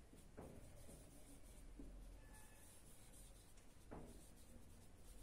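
Faint marker strokes on a whiteboard as words are written, with two short soft clicks, one near the start and one about four seconds in.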